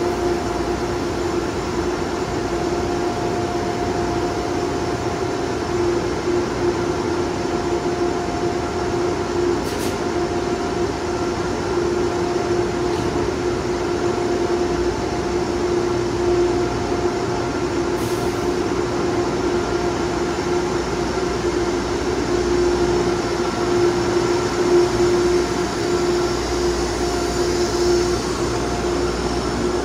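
GE P32AC-DM dual-mode locomotive standing at the platform, giving off a steady hum with one held tone. Two brief clicks come about ten and eighteen seconds in. Near the end a low rumble builds as the train begins to pull out.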